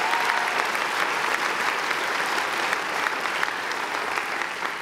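Large audience applauding, a dense steady clapping that eases off near the end.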